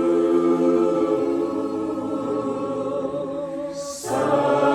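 A choir singing a slow hymn-like song, holding a long chord at the end of a phrase that fades slightly, then, after a short breath with a soft hiss, coming in together on the next line near the end.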